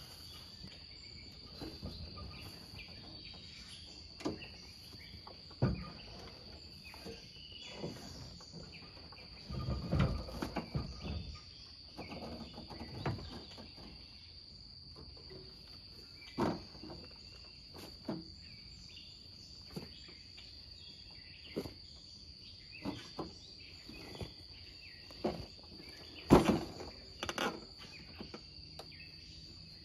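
Steady high insect drone in the woods, with scattered clunks and thumps as a Kawasaki Bayou 250 four-wheeler is rolled and tipped off a pickup's tailgate by hand, its engine off. A cluster of heavier knocks comes about ten seconds in, and the loudest thump near the end.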